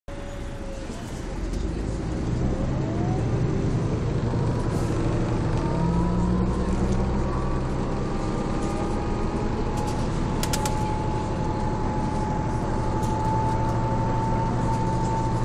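City bus's Mercedes-Benz OM447hA six-cylinder diesel and ZF 4HP590 automatic gearbox pulling away and accelerating. A whine climbs in pitch in several steps through the gear changes, then holds steady as the bus cruises.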